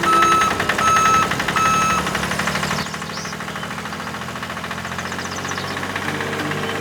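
A small engine running with a rapid, even knocking pulse over a steady low hum, louder in the first three seconds. Over the first two seconds, four evenly spaced high beeps sound.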